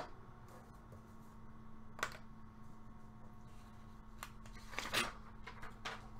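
A quiet room with a steady low hum, broken by a few soft taps and rustles: a clear plastic puck display cube set down on a wooden desk and a paper sheet handled. One tap comes about two seconds in, the rest close together near the end.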